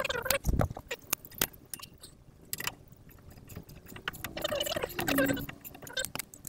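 Hand tools clinking and rattling against steel suspension parts as a wrench and socket are fitted to and worked on a sway bar link nut: a string of sharp, irregular metallic clicks, with a heavier knock about half a second in.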